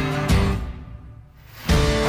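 Background music; it fades away about half a second in, leaving a brief lull of about a second, then comes back in suddenly near the end.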